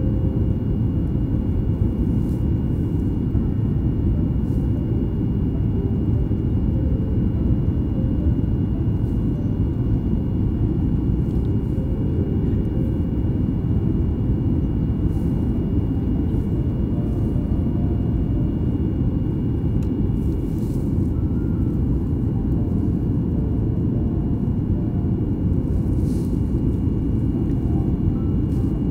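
Steady low rumble of a jet airliner's engines and rushing air heard inside the passenger cabin during the climb after takeoff, with a faint thin whine held steady above it.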